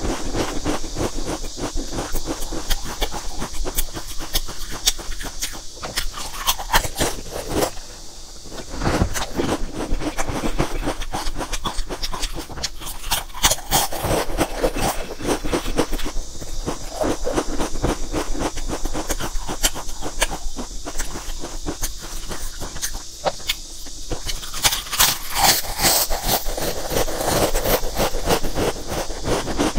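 Potato chips crunching as they are bitten and chewed: a dense, irregular run of crisp cracks, thicker in a few spells.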